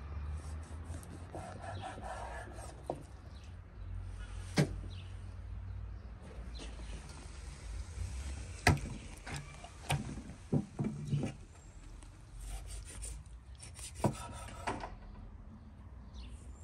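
Large kitchen knife cutting through raw beef heart on a thick wooden chopping board: the blade rubs and scrapes through the meat, and several sharp knocks come where it strikes the board.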